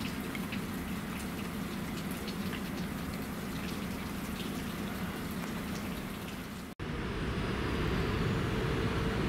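Rain dripping, scattered drop ticks over a steady low hum; about seven seconds in, a sudden cut to a louder, steady low rumble.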